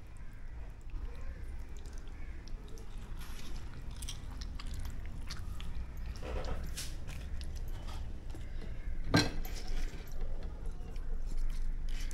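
Soft handling sounds of plastic-covered hands stuffing squid tubes with a salt and chilli paste: small rustles and squishy clicks over a low steady hum, with one sharp click about nine seconds in.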